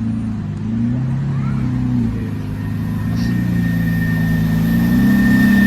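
Audi A7 engine running at low revs, its note stepping up slightly in the second half. A thin steady high whine comes in about halfway. The engine has logged a cylinder 6 misfire (P0306) and a cylinder-disabling code.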